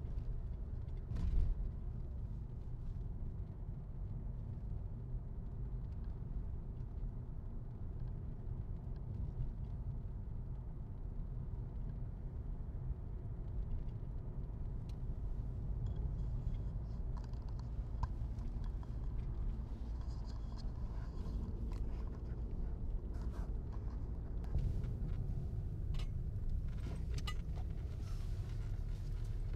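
Car driving, heard from inside the cabin: a steady low rumble of engine and tyres on the road, with a knock about a second in and a few light rattling clicks near the end.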